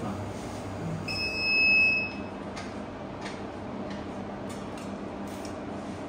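Fiber connector polishing machine's timer buzzer giving one steady, high-pitched beep about a second long, signalling that the first polishing step has finished. A low steady hum runs underneath.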